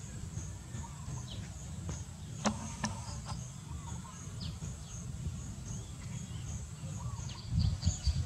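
Rural outdoor ambience: a high chirp repeating evenly a few times a second over a low rumble, with a few short falling calls. Two sharp clicks come about two and a half seconds in, and the rumble swells near the end.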